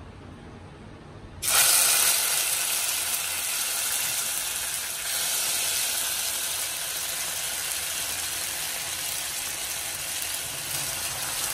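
Wet ground green masala paste hitting hot oil in a steel kadhai: a sudden loud sizzle about a second and a half in, settling into a steady hiss as the water in the paste fries off.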